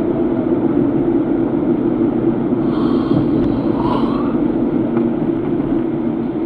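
Steady engine and road noise of a car being driven, heard from inside the cabin as an even drone.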